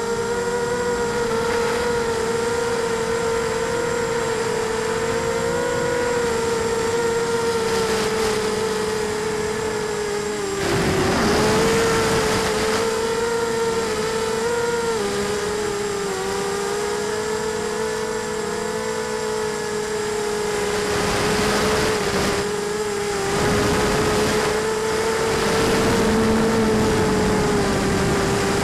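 Tarot 250 quadcopter's brushless motors and propellers whining, heard from the camera on board, the pitch wavering as the throttle changes. Louder stretches of rushing noise come in about ten seconds in and again after about twenty seconds.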